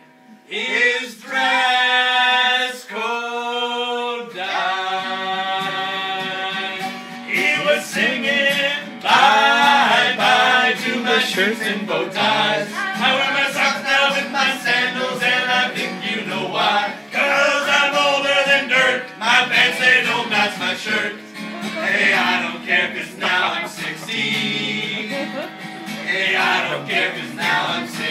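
A small group of men and women singing a song together, with an acoustic guitar accompanying them. Long held notes in the first few seconds, then quicker sung phrases.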